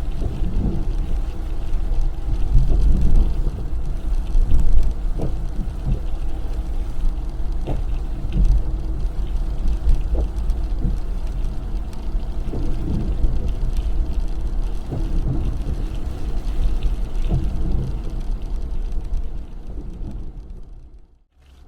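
Car driving on rain-wet roads: a steady low rumble of engine and tyres, with scattered short knocks. It fades away and drops almost to silence just before the end.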